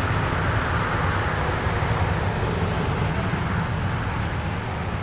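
Boeing 787's Rolls-Royce Trent 1000 turbofans running at low thrust as the airliner taxis: a steady low rumble with a hiss above it, easing slightly near the end.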